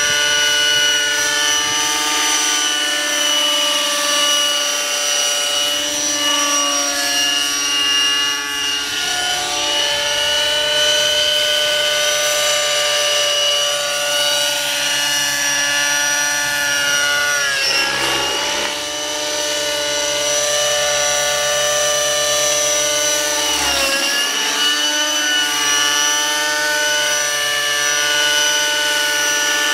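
Glow-fuel (nitro) engine and rotors of a radio-controlled model helicopter, a steady high-pitched whine while it flies. The pitch dips sharply and recovers twice, past the middle and again about four fifths of the way through.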